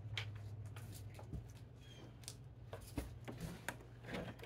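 Faint, scattered light clicks and knocks of gear being handled, over a steady low hum.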